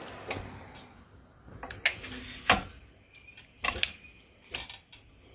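Homemade Bulldog 15 air-powered blacksmith power hammer delivering light single hits: about four sharp taps a second or so apart, with a hiss of air in the middle. The ram is set to barely touch the work.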